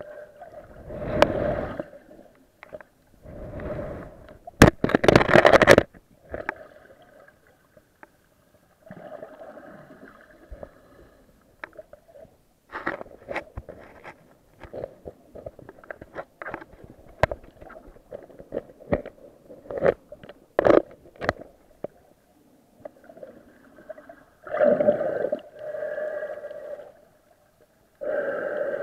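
Muffled underwater sound from a camera in a waterproof housing while snorkeling: water swishing and gurgling in irregular surges, with many sharp clicks and knocks scattered throughout.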